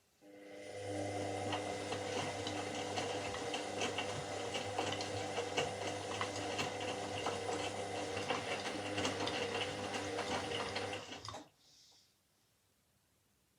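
Washing machine drum motor starting up, running with a steady hum and light clatter for about eleven seconds, then stopping suddenly.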